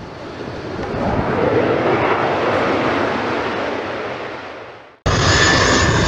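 A passing-jet sound swells and then fades out over about five seconds. Near the end it cuts suddenly to a twin-jet airliner's engines running steadily on its landing approach, a low rumble with a high whine over it.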